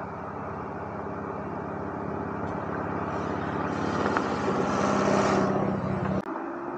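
A motor vehicle engine running, with a rushing noise that builds louder over several seconds, then cuts off abruptly near the end.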